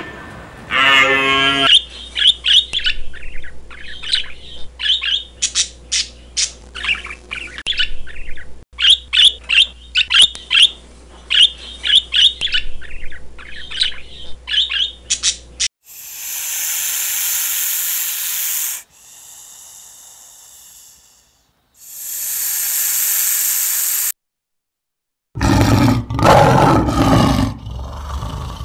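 Budgerigars chirping in quick clusters of short high calls for about fourteen seconds, after a brief low animal call at the start. Then come two long bursts of hiss-like noise with a quieter stretch between them and a short silence. Near the end a male lion is roaring.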